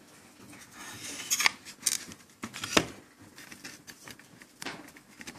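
A few sharp clicks and scrapes of a circuit board being handled as the desoldered inverter transformer is pulled out of its holes, the loudest near the middle.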